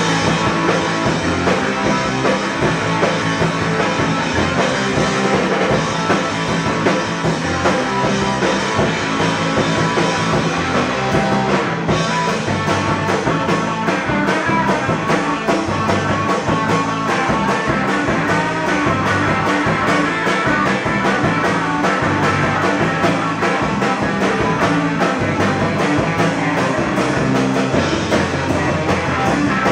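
Live rock band playing: electric bass, electric guitar and drum kit, loud and steady, with no break.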